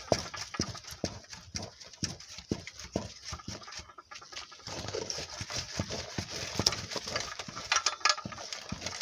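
A wooden stirring stick knocks against an aluminium pot as thick fufu dough is stirred and mashed, in a steady beat of about two strokes a second.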